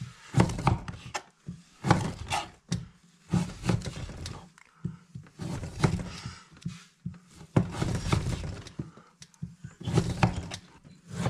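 Kitchen knife slicing through a block of beef still frozen hard and knocking on a wooden cutting board, in irregular strokes every half second to second and a half.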